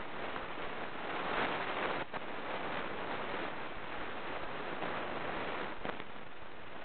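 Steady hiss of a small camera's microphone, with a brief louder rustle of handling about a second and a half in.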